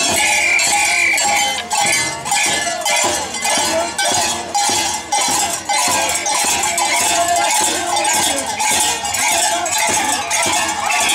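Andean carnival music played live: large frame drums struck in a steady beat, with a high, wavering melody above them and a crowd's shuffle and chatter.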